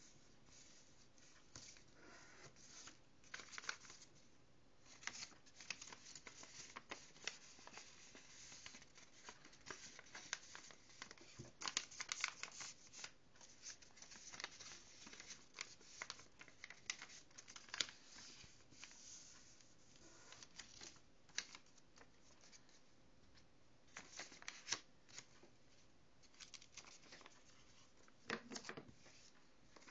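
Faint rustling and crinkling of a sheet of paper being folded and creased by hand. It comes in scattered short bursts over a low background hiss.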